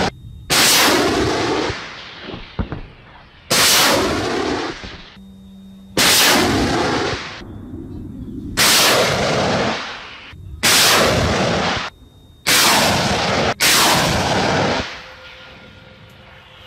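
Rockets launching one after another from a towed multiple rocket launcher: about seven loud rushing blasts a couple of seconds apart, each starting abruptly and fading over a second or so, with a low rumble between them.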